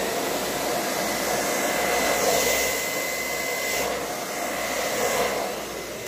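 Hair dryer running steadily, with a thin high whine over the rush of air, blowing poured acrylic paint out across the surface to open up cells.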